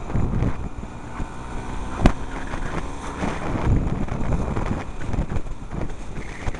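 Motor scooter engine running on the move, heavily mixed with wind buffeting the helmet camera's microphone, with a single sharp click about two seconds in.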